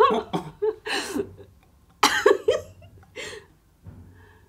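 Stifled laughter and a cough-like burst from people trying to keep quiet, coming in short bursts with quiet gaps between.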